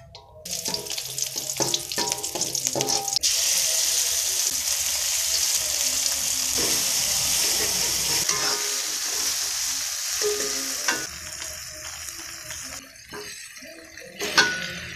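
Food frying in oil in an aluminium wok while it is stirred with a metal spoon: a light crackle of shallots at first, then a loud steady sizzle that starts suddenly about three seconds in as ground chili paste meets the hot oil. The sizzle fades near the end, and a single sharp knock sounds just before it ends.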